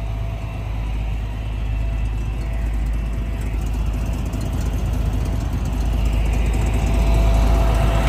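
Tow truck's engine idling with a steady low rumble, growing louder near the end.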